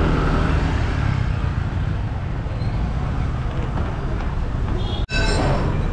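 City street traffic noise: a steady low rumble of passing vehicles. It drops out for an instant about five seconds in and resumes.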